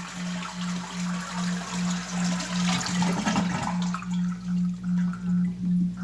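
Toilet flushing with its water supply shut off: the tank empties into the bowl in a rush of water that dies away after about four seconds, with no refill behind it. A low, pulsing tone runs under it.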